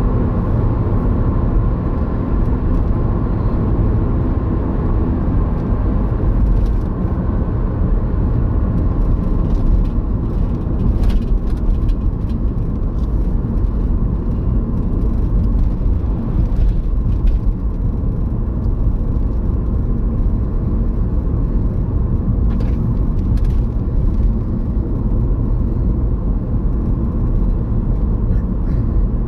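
Car driving on the open road, heard from inside the cabin: steady engine and tyre noise.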